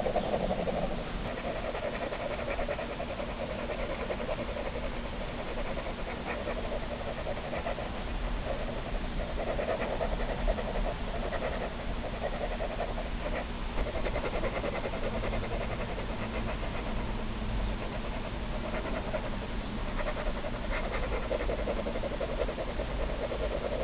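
Ballpoint pen scribbling on sketchbook paper, a continuous scratchy rustle of tight, rapid looping strokes that swells and eases as the shading goes on.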